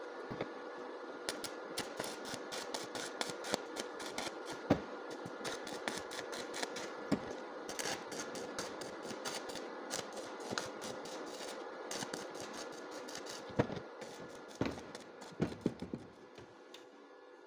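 Stick (arc) welding: the electrode arc crackles and sizzles steadily. Near the end the crackling stops and a few sharp knocks follow.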